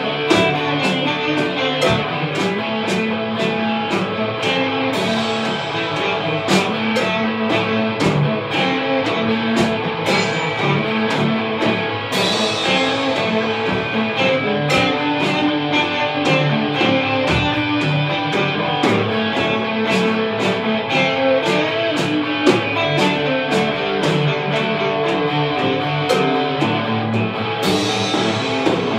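Instrumental rock played live on two electric guitars and a Gretsch drum kit, driven by a steady beat of cymbal strikes. Crash cymbals ring out about five seconds in, about twelve seconds in, and again near the end.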